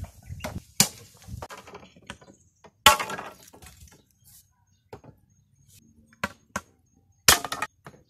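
Sharp clacks and knocks of green bamboo poles being handled and knocked against one another, as separate strikes with the loudest about three seconds in and a quick cluster near the end.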